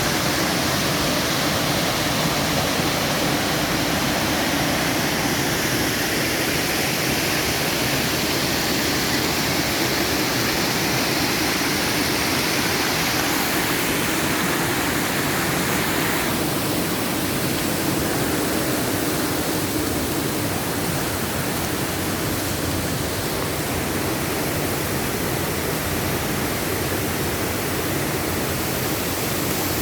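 Waterfall at low water, a steady rushing of falling water; the higher hiss eases slightly about halfway through.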